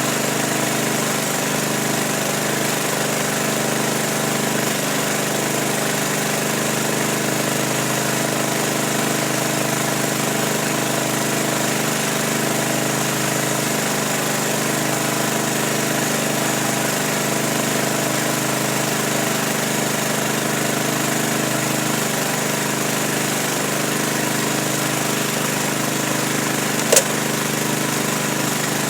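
A motor or engine running steadily with an unchanging drone, and one short sharp click near the end.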